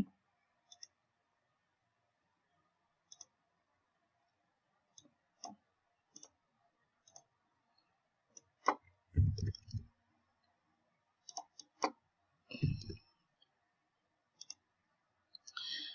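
Sparse clicks of a computer mouse and keyboard as values are entered into a form, with a few louder, duller knocks around the middle.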